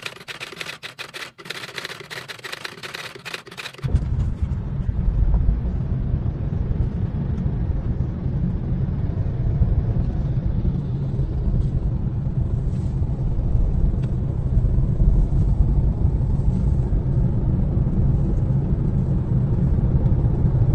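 Steady low rumble of a car driving on a highway, heard from inside the cabin. It cuts in about four seconds in, after a short stretch of crackling clicks.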